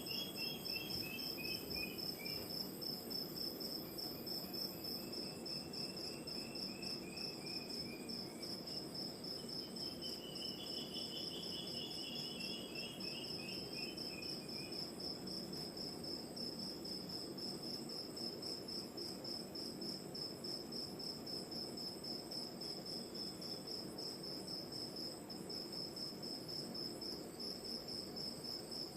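Night chorus of crickets: a steady, fast-pulsing high trill, over a low steady wash of distant ocean surf. A lower chirring trill rises and falls three times in the first half.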